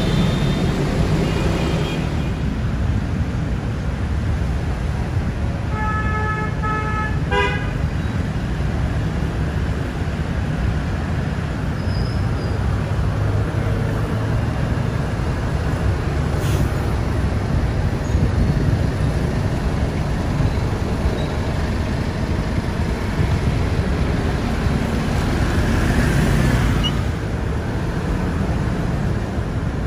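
Sleeper coaches' engines running as they pull out into traffic. A horn sounds in two short blasts and then a few quick toots about six to seven seconds in, and another horn tone is fading at the very start.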